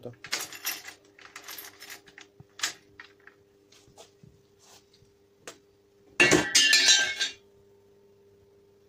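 Metallic clicks and clinks from a mortise lock's bolts and the keys hanging in it, set in a steel-tube door frame. A louder metallic rattle comes a little after six seconds in and lasts about a second.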